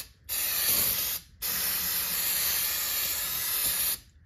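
Aerosol can of brake cleaner spraying into a brake drum: a short spray of about a second, a brief pause, then a longer spray of about two and a half seconds that stops near the end.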